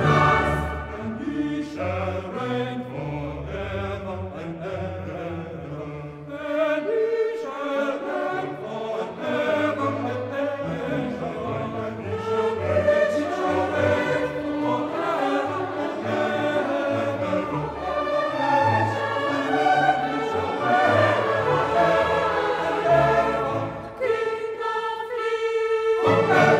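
Background choral music: a choir singing held notes. Near the end it drops away briefly and comes back on a long held note.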